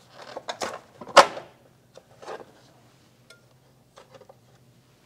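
Hands handling a small engine's plastic fan cover and working its rubber fuel line out of a retaining clip: a few short plastic clicks and rustles, the loudest about a second in, then fainter ticks.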